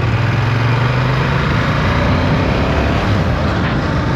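Loud motorcycle engine running, with a steady low hum for the first second and a half, then a rough, noisy rush.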